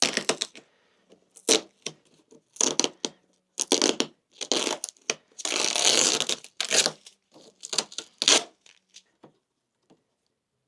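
Nylon zip ties being pulled tight through holes in a plastic bumper: a series of quick rasping zips of irregular length, some short and some drawn out, stopping near the end.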